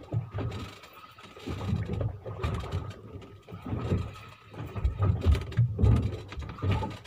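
Wind and water noise on an open fishing boat at sea: irregular low rumbling surges that swell and fade every second or so.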